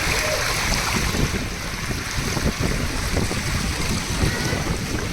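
Strong storm wind buffeting the microphone, over a steady loud rush of noise.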